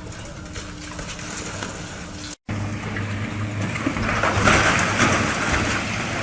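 Heavy machinery engines running steadily in two back-to-back clips, with a brief dropout about two and a half seconds in. A louder noisy stretch comes about four to five seconds in.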